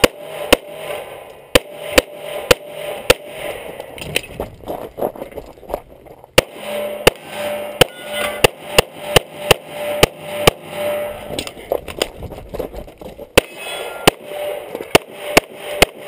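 Handgun fired rapidly, mostly in quick pairs of shots. Two short pauses break the strings of fire, one about four seconds in and one about twelve seconds in.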